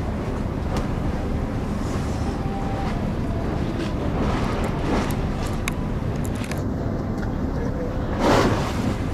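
Steady low rumble of harbour background noise, with a few faint clicks and a brief louder rush of noise near the end.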